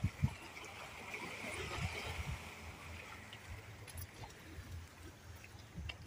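Wind blowing across a phone microphone: low, irregular buffeting thumps over a steady rushing hiss that is strongest in the first half.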